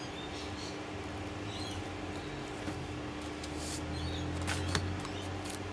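Light handling of paper and card over a steady low hum, with a few small clicks and taps in the second half.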